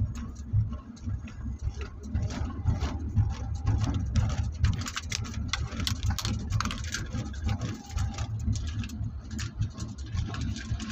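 Car interior noise while driving: a steady low road and engine rumble with many short clicks and rattles throughout.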